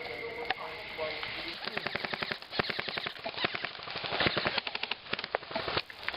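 Airsoft guns firing in rapid full-auto bursts: quick runs of sharp snaps, starting about a second and a half in and going on in short strings with brief gaps.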